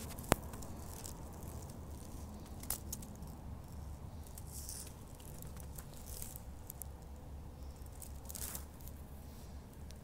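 Faint rustling and crackling of dry pine-needle litter with handling noise on a handheld phone. One sharp click comes just after the start, a softer knock near three seconds, and scattered light ticks through the rest.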